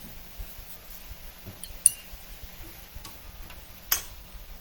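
Light clinks and taps of kitchen utensils and a container as salt is added to the pan, with two sharper clicks about two seconds apart.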